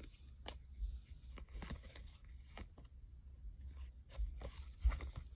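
Faint, irregular rustles and light clicks of 2020 Topps baseball cards being handled and slid one behind another as a pack is flipped through.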